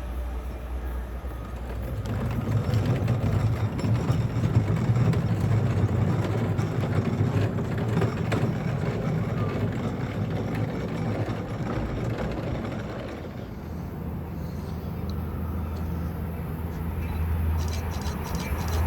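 Long Island Rail Road train running past on the line, a steady low rumble that grows louder a couple of seconds in, eases off around the middle and builds again, with a run of sharp clicks near the end.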